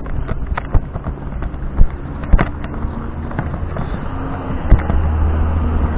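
Irregular sharp knocks and bangs, a few in each second, over a low steady hum that grows a little stronger near the end.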